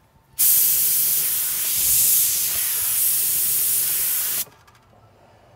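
Compressed-air gravity-feed paint spray gun spraying a coat of paint: a steady hiss of air and atomised paint that starts about half a second in and cuts off suddenly about four and a half seconds in.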